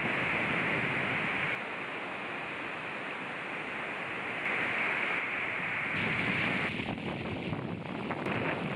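Wind rushing over a GoPro Session's microphone while riding along the shore, mixed with the hiss of breaking surf. The noise shifts in level a few times and turns choppy and gusty near the end.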